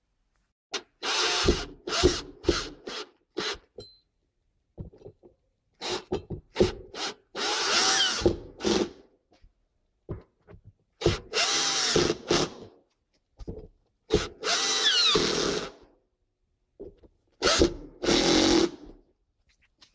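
Power drill driving the mounting screws of a Rockford Fosgate P2 12-inch subwoofer into its enclosure, in repeated short bursts with pauses between them. The motor's pitch rises and falls within the longer runs.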